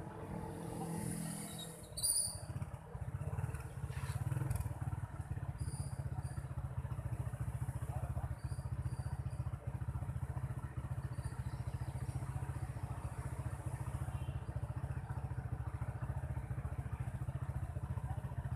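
Motorcycle engine running low as it slows, then idling steadily with an even, fast putter while stopped at a red light. A sharp click about two seconds in.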